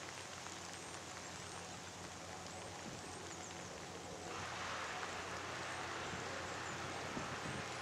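Steady hiss of rain falling on grass and leaves, growing louder about four seconds in.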